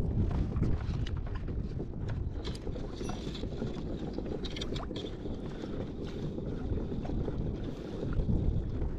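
Wind buffeting an action-camera microphone over water slapping against a kayak hull, a steady rumble with a few faint clicks.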